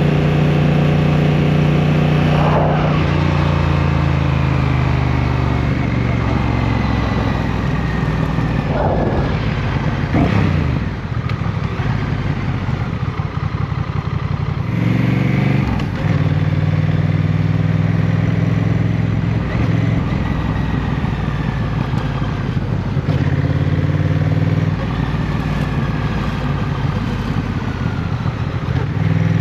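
Motorcycle engine running at highway speed, heard from the rider's seat. The engine note steps in pitch several times as the throttle and gears change, easing off for a few seconds around the middle before pulling again.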